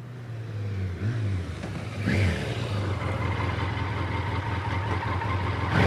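Motorcycle engine sound effect running and revving, growing louder in the first two seconds, with short rises in pitch about one second, two seconds and near six seconds in.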